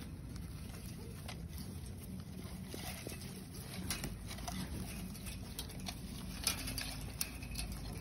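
Dry hay rustling, with scattered light clicks, as a pregnant doe rabbit moves and gathers hay for her nest in a straw-bedded wire hutch. Underneath is a steady low hum.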